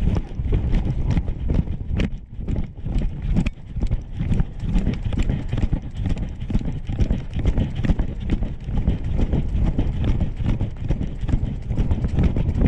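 A large dog running on grass, heard through a GoPro strapped to its harness: rapid, uneven thumps of its strides with the camera jolting in its mount.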